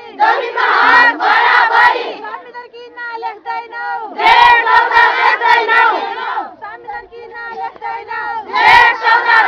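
A crowd of women at a protest march chanting slogans: three loud group shouts, with quieter chanting in between.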